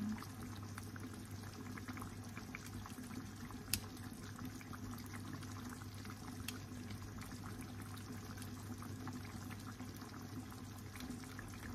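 Thick tomato-sauce pork menudo simmering in a frying pan, with steady soft bubbling, many small pops and a sharper pop a little under four seconds in. A low steady hum runs underneath.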